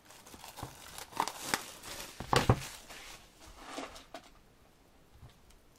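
Hands handling a cardboard CD album package: scattered light taps, clicks and rustles, the loudest a little past two seconds in, dying down over the last couple of seconds.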